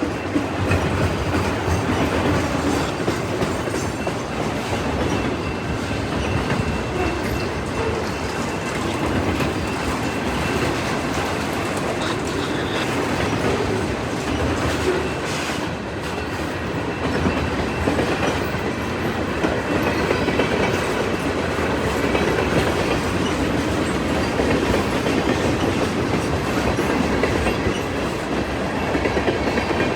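CN local freight train L570's cars rolling past, wheels clattering steadily over the rail joints.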